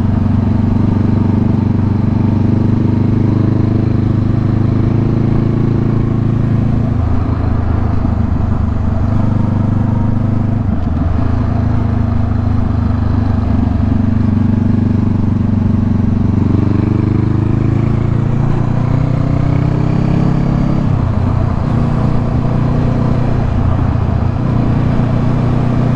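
Motorcycle engine running under way, heard from on the bike, its steady note stepping down and up in pitch a few times as the rider changes speed or gear.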